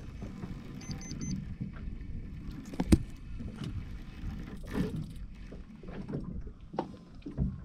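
Fishing tackle being handled on a small moored fishing boat: irregular small knocks and rustles over a steady low rumble of wind and water, with one sharp click about three seconds in.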